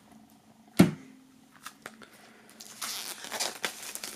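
Plastic shrink-wrap being torn and crinkled as it is peeled off a CD digipak, with a sharp knock about a second in.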